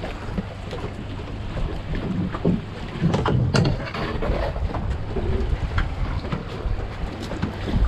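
Wind rumbling on the microphone aboard a small fishing boat at sea, with a few sharp knocks and a cluster of louder knocks about three seconds in.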